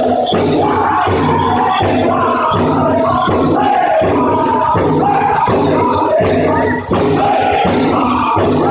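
Powwow drum group singing a chicken dance song in unison over a steady drumbeat, with bells jingling.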